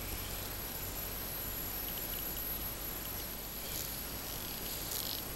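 Outdoor ambience at a pond: a steady hiss with a thin, steady high whine, and faint short high chirps of small animals starting about two seconds in and coming more often near the end.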